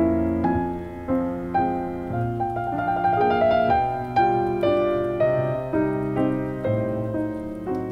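Background piano music: a gentle melody of single notes, about two a second, each fading after it is struck.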